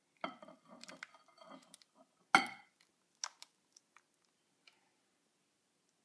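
Thick, creamy tomato and cashew sauce squelching and plopping as it is poured onto spaghetti in a glass bowl, with a sharp clink of dishware a little over two seconds in and a few lighter taps after.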